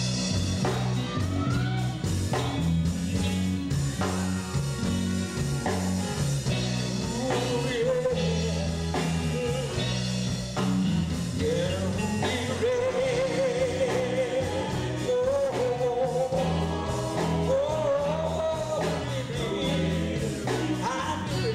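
Live gospel quartet music in a church: a band with electric guitar, drums and a stepping bass line playing a steady groove, joined about a third of the way in by a man's lead vocal singing the melody.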